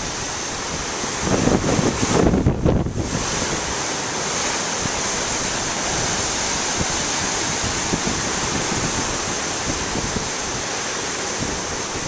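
Heavy storm surf breaking and churning over a rocky shore, under steady wind noise on the camcorder microphone. About two seconds in, a stronger gust buffets the microphone with a louder low rumble.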